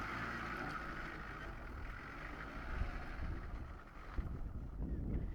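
Off-road vehicle engine running, with low rumbling wind on the microphone. A higher steady whine fades out about three and a half seconds in.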